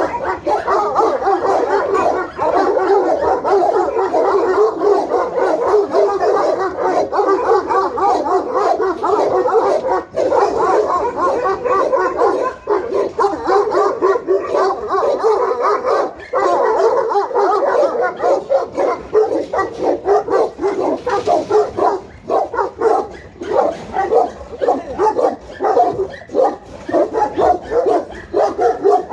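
Several large guard dogs, Central Asian Shepherds (Alabai) and Tibetan Mastiffs, barking at once in a continuous, overlapping din. In the last third the barks come more separately, as a fast run of deep barks.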